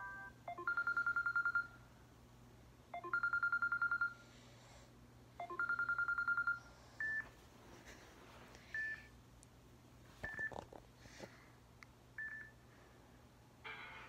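Samsung Galaxy J3 Orbit's built-in ringtones playing from its speaker: a trilling electronic phone-bell ring at one steady pitch, sounding three times about two and a half seconds apart, then a few short single beeps spaced a second or two apart.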